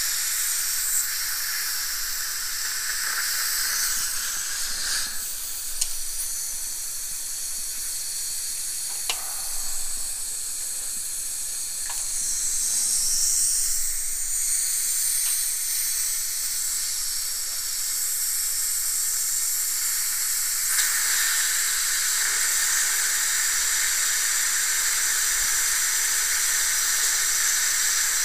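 Dental handpiece with its water spray, together with the suction tip, hissing steadily in the patient's mouth as the root canal post space in a molar is drilled wider for a post that fits too tightly. A few faint clicks fall in the first half, and the hiss grows stronger about two-thirds of the way through.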